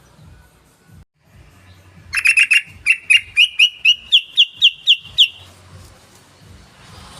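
Yellow-vented bulbul (trucukan) calling, about two seconds in: a quick burst of chattering notes, then about ten sharp notes evenly spaced at roughly three a second, rising slightly in pitch, for about three seconds.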